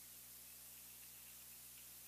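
Near silence: a steady faint hiss with a low electrical hum, and a few very faint thin high-pitched notes.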